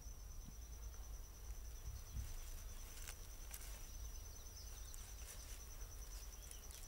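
Faint natural ambience carried by an insect's steady, high-pitched pulsing trill, over a low rumble. A few faint rustling clicks fall about three seconds in.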